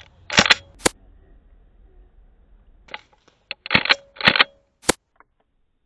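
Airsoft gun shots: sharp cracks, a quick bunch of them about half a second in, then another run from about three seconds in to near five seconds.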